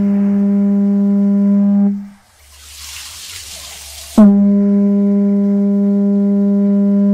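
Two long, steady horn-like blasts on one low pitch. The first ends about two seconds in; the second starts abruptly about four seconds in. A rushing hiss fills the gap between them.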